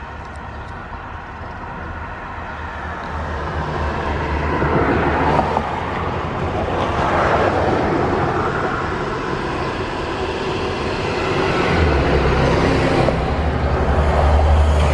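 School buses driving past, their engine and road noise swelling twice as they go by, then a steady low diesel drone that grows louder near the end as another bus comes close.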